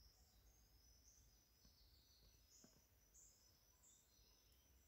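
Near silence: faint forest ambience with soft, high-pitched chirps scattered through it.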